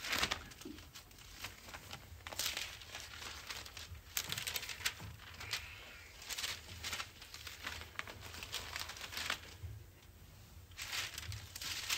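Bible pages being leafed through: a string of short, soft paper rustles as the pages are turned to find a passage.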